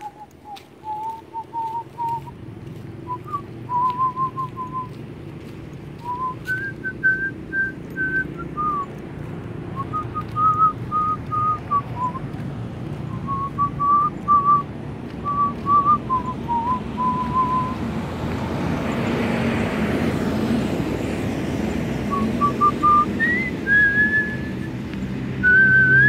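A person whistling a tune in short held notes and phrases. A broader noise swells and fades around two-thirds of the way through.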